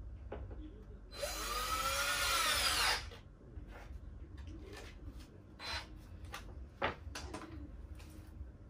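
Cordless drill driving a screw into a plywood panel to fix a hinge: one run of about two seconds, its whine rising in pitch, followed by a few short clicks and brief bursts.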